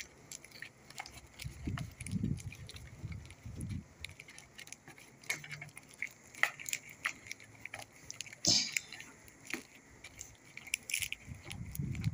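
Hands handling a cardboard watch box and bubble-wrap packaging: scattered clicks, taps and plastic crinkles with a few low bumps, and a louder rustle about eight and a half seconds in.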